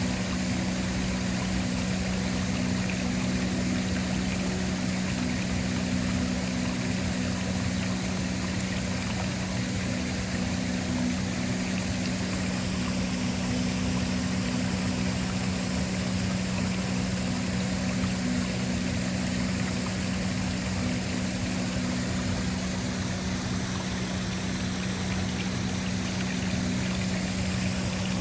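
Waterfall rushing steadily, with a sustained low drone from a relaxing background ambience underneath.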